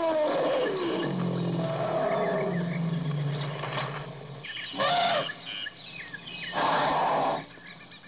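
Elephants calling: a pitched call that falls in pitch just after the start, then a low rumble for about three seconds, and two short loud calls, one about five seconds in and one near seven seconds.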